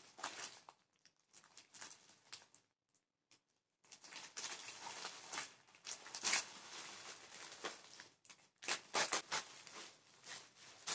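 Scissors cutting open a plastic courier mailer bag, the plastic crinkling and rustling as it is handled. The crinkling starts about four seconds in, with a few sharp snips and crackles later on.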